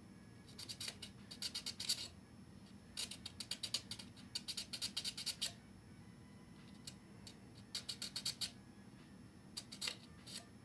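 Micro file rasping back and forth on a styrene plastic model part, squaring up a drilled window opening: quick, short scratchy strokes in several bursts of one to two seconds, with pauses between.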